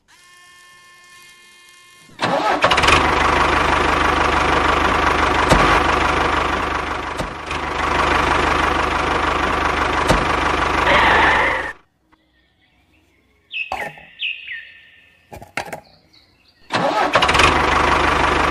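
A tractor engine sound starts up about two seconds in after a quieter steady whine, runs steadily, and cuts off suddenly just before midway. A few short knocks with squeaky falling tones follow, then the engine sound starts again near the end.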